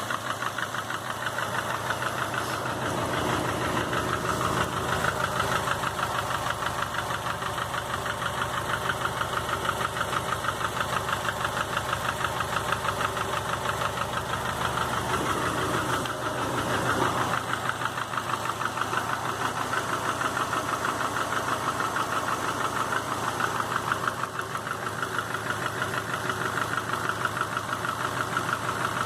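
2005 Subaru Legacy GT's turbocharged 2.5-litre flat-four running, with a rapid, regular knock that keeps time with the engine. The knock appeared after a rebuild on a refurbished block with a new crankshaft and bearings (the original block had spun two rod bearings); its cause is still undiagnosed, though oil pressure, plugs, exhaust and belts have been checked.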